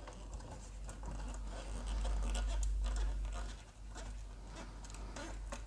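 Small screwdriver driving a tiny screw into a scale-model part from underneath: faint scratching and light ticks over a faint low hum.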